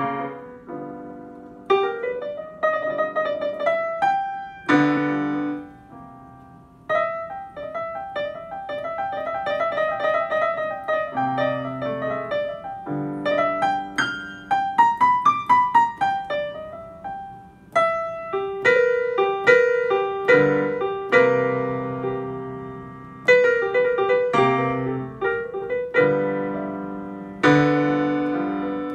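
Casio digital piano playing a blues in C major: two-handed chords struck and left to ring out, with a flurry of quick notes about halfway through.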